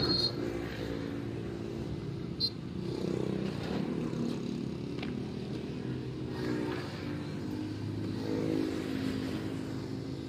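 An engine running steadily, its pitch drifting up and down a little, with one sharp click about two and a half seconds in.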